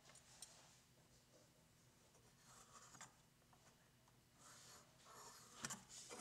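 Faint, intermittent scratching of a mechanical pencil drawing a line along a sliding bevel on a hardwood block, with a slightly louder stroke near the end.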